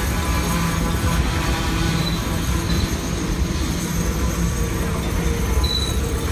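Freight train cars rolling past at close range, a tank car followed by covered hoppers: a steady rumble of steel wheels on the rails with a few short, faint high wheel squeals.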